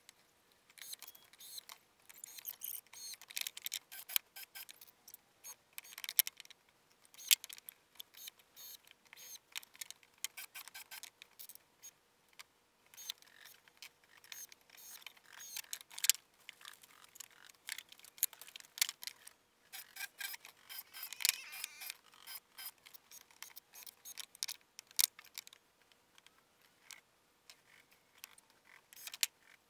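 Scattered light clicks, taps and knocks of 2x2 pine framing pieces and screws being handled and fitted together, with no power tool running.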